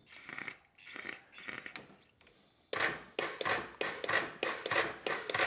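Aerosol carburetor cleaner sprayed in a few short hisses into the carburetor throat of a Yamaha Big Bear ATV. About two and a half seconds in, the single-cylinder engine starts cranking over in a fast even rhythm of about four to five strokes a second without catching, as a test of whether it will fire on the cleaner.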